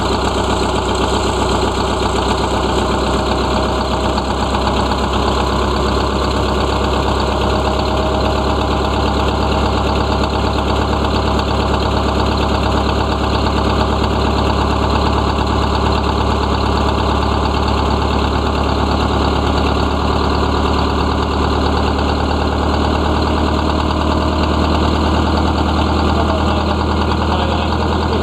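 GM PD4501 Scenicruiser bus's diesel engine idling steadily, with its rear engine compartment open.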